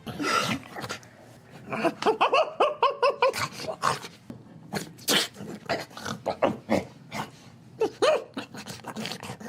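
A person's voice imitating a dog, making a quick run of short, pitched dog-like noises.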